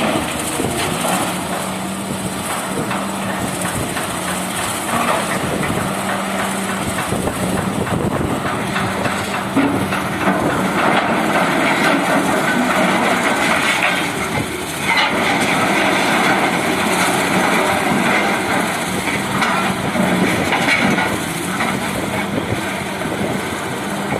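Excavator running under load with a dense, continuous clatter of knocks over a steady engine hum.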